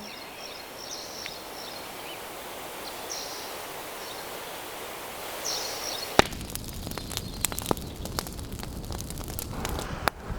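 Outdoor ambience with a steady hiss and a few faint bird chirps. About six seconds in, a sharp snap is followed by many small crackles and rustles.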